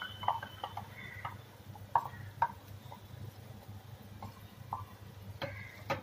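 Scattered light clicks and taps of steel utensils against a steel kadai over a low steady hum; near the end the taps come quicker as a spatula starts stirring spinach purée into the pan.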